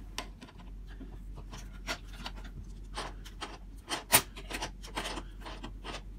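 A pair of pliers turning a small axle bolt out of a stroller's front swivel mechanism, metal on metal: irregular scraping and clicking as the jaws grip and turn, with one sharp click about four seconds in.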